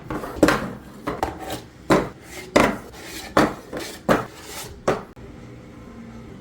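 Hard parts clattering and knocking as they are handled and set down, about eight knocks over five seconds, then quiet.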